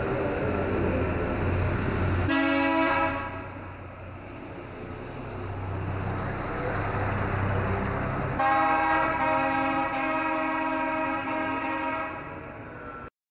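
Street traffic: a vehicle engine rumbles low while a horn sounds briefly about two seconds in, then a longer horn blast, broken a couple of times, from about eight to twelve seconds. The sound cuts off suddenly near the end.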